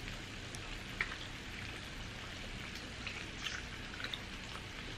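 A few faint crackles and clicks of king crab leg shell as the meat is picked out by hand, over a steady low hiss.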